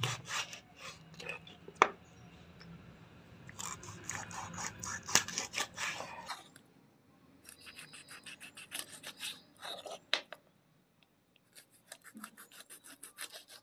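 A kitchen knife sawing through a murrel (snakehead) fish, cutting it into steaks on a wooden chopping board. The cutting comes in several bursts of rapid rasping strokes, with a couple of sharp knocks.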